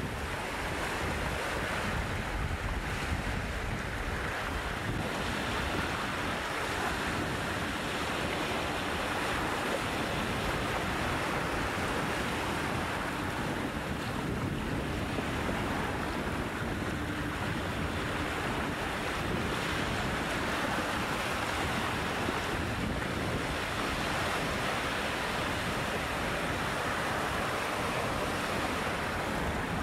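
Small waves of choppy bay water washing and foaming over a pebble and rock shoreline, the wash swelling and easing every several seconds, with wind buffeting the microphone.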